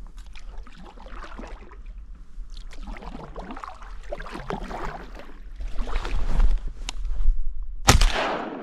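Kayak paddle strokes splashing and knocking in marsh water, then one loud shotgun shot near the end with a long trailing echo.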